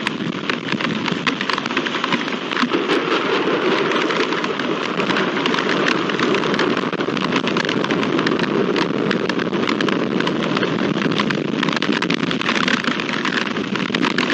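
Heavy rain pouring down steadily, with countless drops ticking close by through the continuous hiss.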